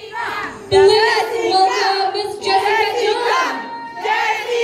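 A crowd of excited fans shouting and screaming together, many high voices overlapping, with loud surges about a second in and again near the end.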